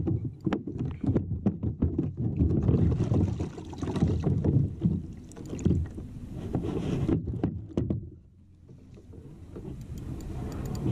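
Water slapping against a plastic Hobie kayak hull and wind buffeting the microphone, with many sharp knocks of fishing gear being handled; it drops much quieter about eight seconds in, then builds again.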